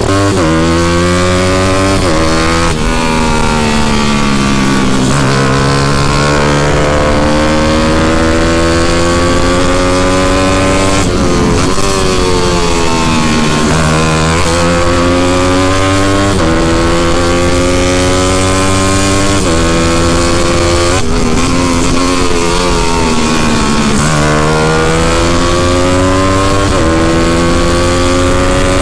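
Motorcycle engine heard from on board during a hard lap of a circuit. The revs climb in each gear and drop sharply at each gear change, again and again, with a few longer falls where the rider backs off for corners.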